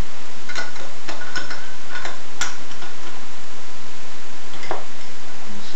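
A handful of irregular light metallic clicks and clinks as the rocker arms, lock nuts and other small valve-train parts are taken off a Honda GX160 cylinder head and handled on the bench.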